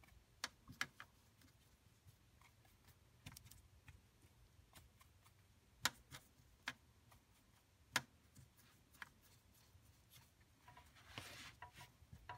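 Near silence with a few faint, scattered clicks and taps. Near the end, the soft scrubbing of a watercolour brush mixing dark paint in a palette well.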